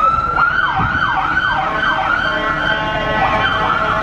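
Fire truck siren: a short rising wail that switches a fraction of a second in to a fast yelp, sweeping up and down about three times a second.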